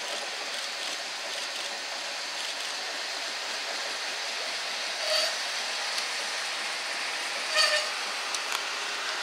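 Class 56 diesel locomotive with a Ruston 16-cylinder engine running as it rolls slowly past at close range, a steady mechanical noise. Two short squeals stand out about five and seven and a half seconds in.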